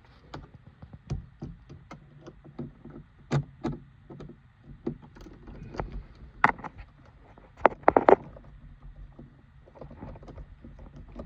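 Irregular clicks, taps and knocks of a screwdriver working at plastic interior trim, with the loudest cluster of sharp clicks about eight seconds in.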